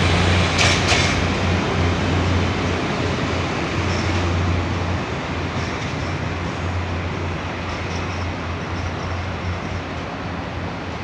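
State Railway of Thailand NKF-class diesel railcar train pulling away down the track. A few sharp wheel clacks over the rail joints sound about a second in as the last car goes by, then the engines' low drone and the rolling of the wheels slowly fade.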